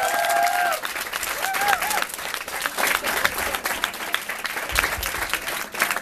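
Small club audience applauding at the end of a comedy set, a dense patter of clapping throughout. A voice calls out over the clapping at the very start and again briefly about a second and a half in.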